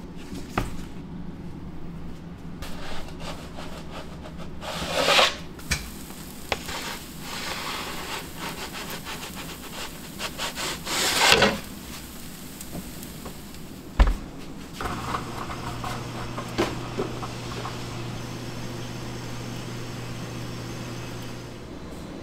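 Rubbing and scraping noises, with two louder swells of about a second each and a sharp knock about fourteen seconds in. A steady low hum starts shortly after the knock and stops just before the end.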